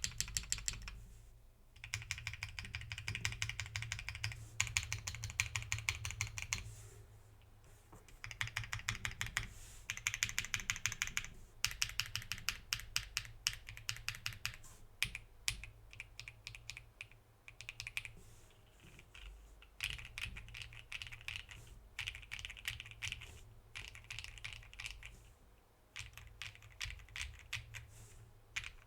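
Custom 60% mechanical keyboard with lubed Kailh Cream linear switches, a polycarbonate plate and GMK keycaps being typed on fast, in runs of rapid keystrokes broken by short pauses.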